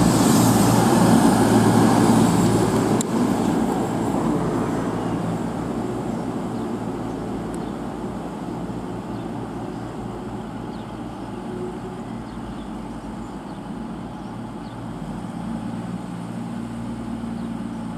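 CrossCountry Voyager diesel multiple unit running slowly alongside the platform, its underfloor diesel engines humming. The rolling and engine noise is loudest for the first few seconds, then settles to a steadier, quieter drone.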